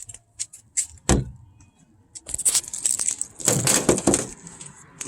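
Handling noises: a few light clicks and a knock about a second in, then about two seconds of rustling and scraping.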